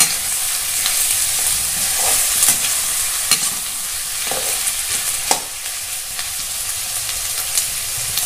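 Pieces of duck meat sizzling on a high flame in a metal kadai, stirred with a perforated metal spatula that clinks and scrapes against the pan every second or so.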